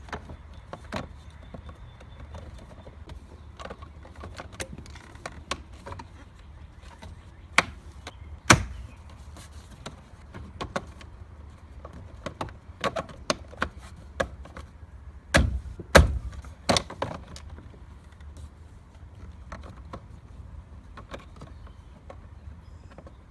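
Irregular clicks, taps and knocks of hands and tools working on plastic steering-column trim, with the loudest knocks about eight seconds in and around fifteen to sixteen seconds in.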